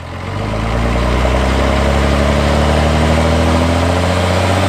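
Dodge Ram pickup's engine idling steadily, fading in over the first second, its pitch creeping slowly upward.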